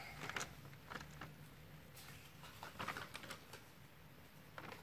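Light, irregular clicks and rustles from small plastic toys being handled, a few a second, busiest around the middle.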